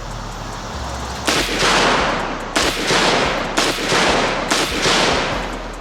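Micro Draco AK-pattern pistol in 7.62×39mm fired in four bursts about a second apart, starting a little over a second in, each shot trailing a long echo.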